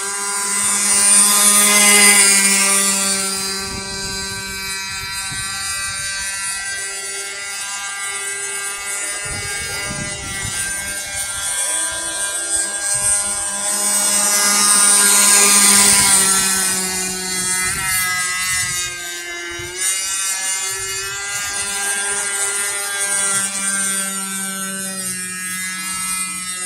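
26cc two-stroke grass-cutter engine of a radio-controlled speedboat running at high speed, a steady high-pitched buzz that swells louder about two seconds in and again midway as the boat passes closer.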